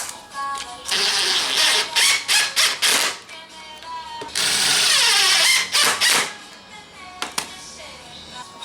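A power tool running in several short bursts, then in one longer run of about two seconds whose pitch slides downward, over background music.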